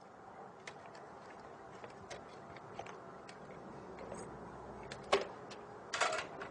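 Quiet room tone with scattered light clicks and knocks as a perforated-board LED panel in a metal frame is handled and lowered. There is a sharper click about five seconds in and a short rush of noise about a second later.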